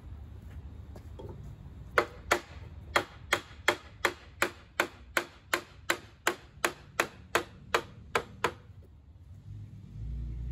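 A quick, even run of about eighteen sharp knocks, some three a second, that then stops: hammer blows on the wooden frame of the bench.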